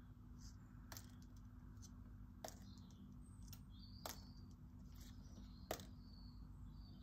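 Near silence with a steady low hum and a few faint ticks as a fresh, moist green leaf is moved over sketchbook paper. Unlike the dry leaves, it gives almost no rustle.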